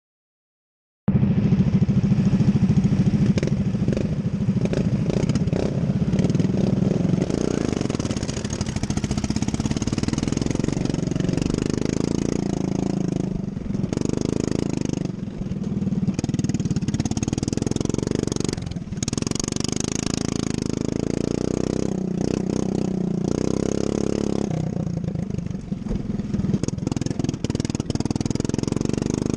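Racing lawn mower engine running hard throughout, its note rising and falling with the throttle and dipping briefly several times. The first second is silent before the engine sound cuts in.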